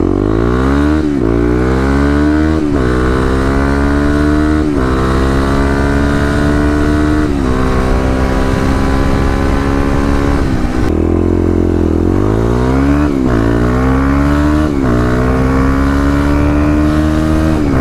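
Kawasaki KLX dual-sport motorcycle's single-cylinder engine accelerating through the gears. Its note climbs in pitch, then drops sharply at each upshift. A second run starts about 11 seconds in.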